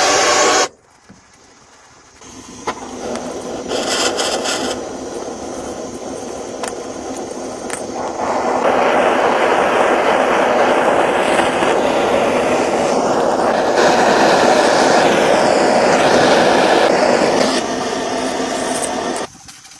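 Continuous scraping on wood. It builds up over the first seconds, grows louder about halfway through, then stops suddenly just before the end.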